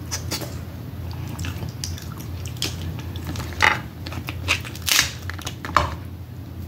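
Close-miked eating of crab: biting and chewing, with several sharper cracks and wet smacks in the second half, over a steady low hum.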